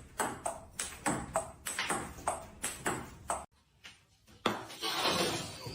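A quick run of short ringing pings, about three a second, that stops about three and a half seconds in; after a short gap a burst of noise follows near the end.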